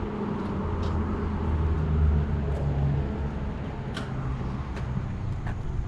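A motor vehicle's engine running with a low rumble that swells about two seconds in and eases off after three, with a few faint clicks.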